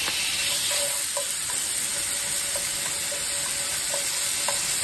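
Diced chicken cartilage sizzling in hot oil in a nonstick frying pan, just added, with a scattering of light clicks from wooden chopsticks stirring the pieces against the pan.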